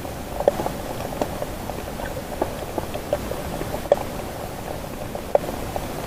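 Underwater sound picked up by a camera submerged in the sea: a steady hiss with irregular short pops and clicks, several each second.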